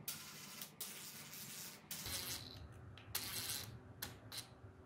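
Wooden picture-frame pieces and the wooden frame clamp being handled with gloved hands: about four short scraping rubs of wood on wood, with a few light knocks near the end.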